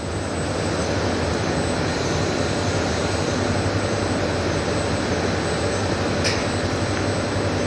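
Steady machinery drone with a low hum underneath, running without change, and one short sharp high sound about six seconds in.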